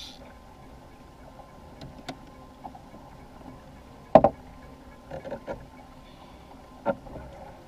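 Kayak on open water: faint steady water noise with a few sharp knocks and taps, the loudest about four seconds in.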